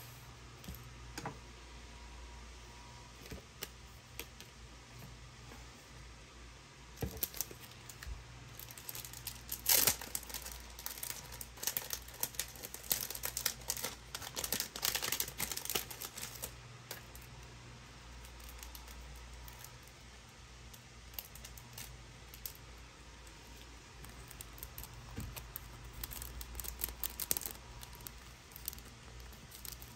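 Thin plastic packets crinkling and crackling as they are handled, in dense clusters of small crackles, heaviest through the middle and lighter again near the end.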